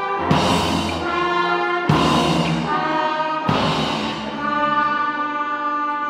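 An orchestral ensemble with brass playing loud sustained chords, each chord struck with a drum hit, three times about a second and a half apart.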